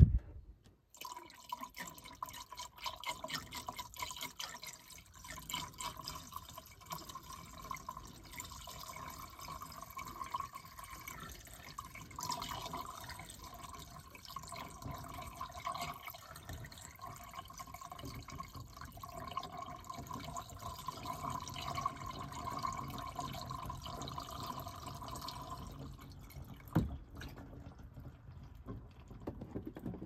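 Water poured steadily into an air handler's PVC condensate drain trap and running down the drain line, flushing it to clear out anything lodged inside. The pour stops near the end, followed by a single knock.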